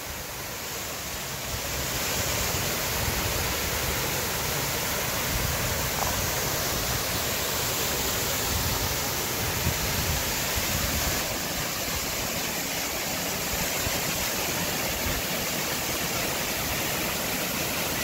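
Steady rush of a 45-foot waterfall pouring down a rock face into its plunge pool, growing a little louder in the first couple of seconds.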